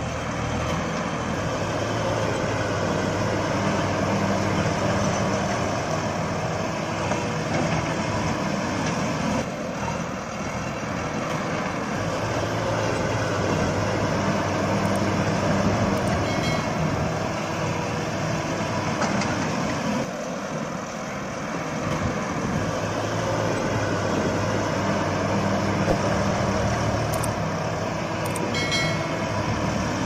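Heavy-vehicle engine noise running steadily, with a low hum that fades twice and comes back.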